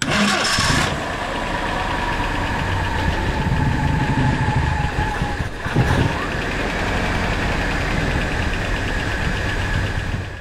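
Willys L134 four-cylinder flathead engine of a 1949 Jeep CJ-3A, fired up cold and running steadily to warm up. The sound starts abruptly with a noisy first second, then settles into even running.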